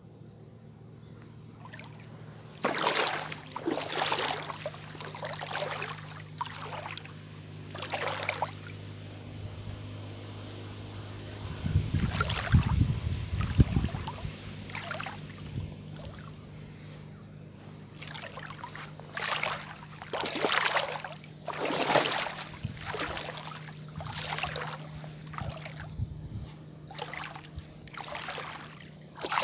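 Shallow seawater splashing and sloshing in irregular bursts every second or two as someone wades through it, with a heavier low splash about twelve seconds in. A steady low hum runs underneath.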